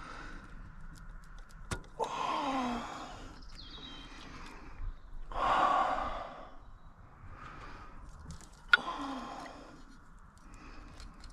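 A man sighing heavily three times in exasperation while working at a stuck clip, with a few sharp clicks in between.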